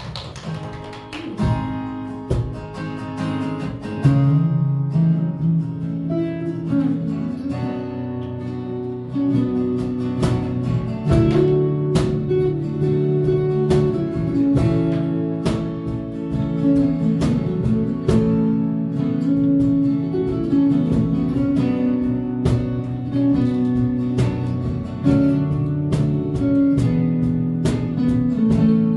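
Acoustic guitar strumming chords in an instrumental passage of a song, with sustained notes held underneath and no singing.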